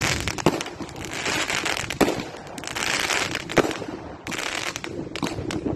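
Fireworks going off: a dense run of crackling pops, with three louder bangs about a second and a half apart.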